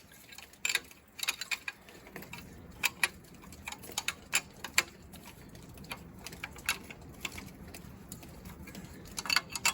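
Irregular sharp metallic clicks and taps of hand tools being handled on metal engine parts, a few a second and unevenly spaced. The engine is not running.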